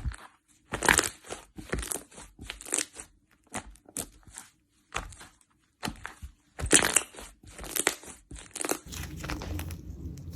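Slime being squeezed and pressed by hand, giving an uneven run of short crunchy crackles and squishes, several a second with brief pauses. A low steady hum comes in near the end.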